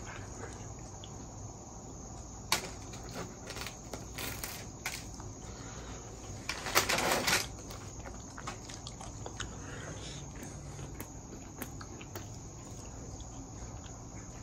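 Someone eating a hot, crusty French bread pizza: scattered small mouth and bread noises, with one louder crunch about seven seconds in.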